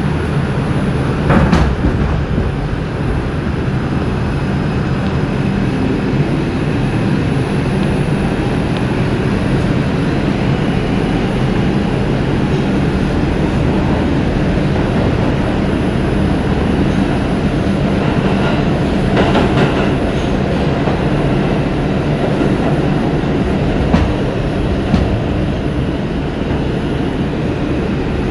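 R142 subway train running through a tunnel, heard from inside the car: a steady rumble and rail noise, with a few sharp clicks from the track.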